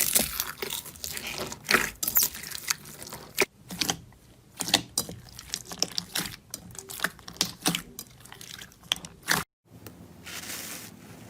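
Slime being squeezed and poked by hand, giving rapid crackles and pops, dense at first and sparser after about four seconds. The sound cuts out briefly near the end, and a softer hiss follows.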